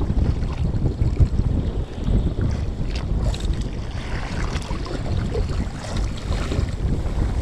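Wind buffeting the microphone on a fishing boat at sea, a steady low rumble.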